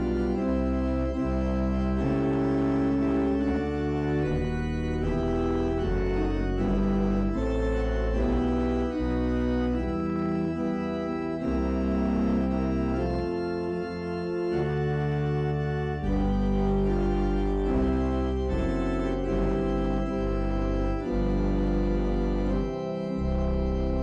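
Organ playing held chords over deep pedal bass notes, the harmony moving every second or two, with a lighter, thinner passage about halfway through.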